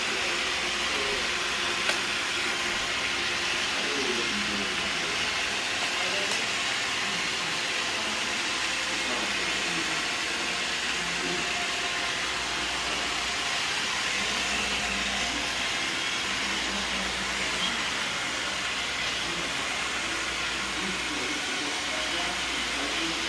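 Roomba robot vacuum running: a steady hiss of its motor and brushes.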